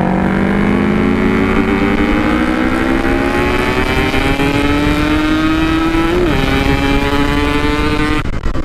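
Yamaha RX-King 135cc two-stroke single-cylinder motorcycle engine pulling under throttle, its pitch climbing steadily for several seconds, then falling away sharply near the end as the throttle is closed. Heard from the rider's position, through a stock-look 'standart belek' packing exhaust.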